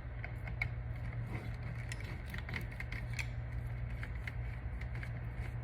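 Faint scattered small clicks and ticks of a screwdriver working loose the small screw that clamps the brake wire in a caliper handle, over a steady low hum.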